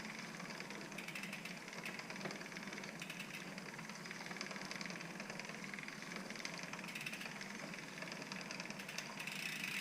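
Rag rubbing along a bicycle chain, wiping off excess degreaser, with fine rapid ticking from the chain.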